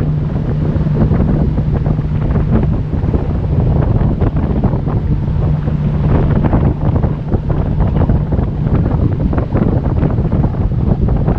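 Wind buffeting the microphone and water rushing and slapping at the hull of a centre-console boat running fast on the plane, over the steady hum of its Mercury 225 outboard, which grows fainter about halfway through.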